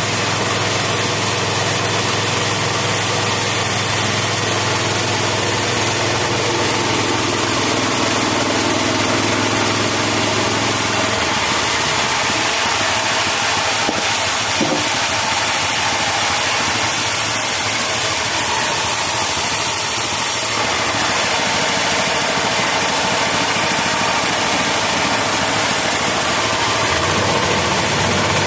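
16 HP engine driving a home-built bandsaw mill, running steadily. About eleven seconds in, its low steady note shifts and turns rougher.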